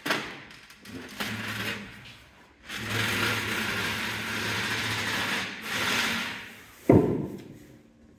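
A small motor whirring for a few seconds, then a single loud thump about seven seconds in.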